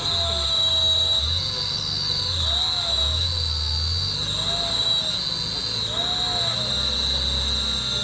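Off-road vehicle engine running with revs rising and falling, over a steady high-pitched whine.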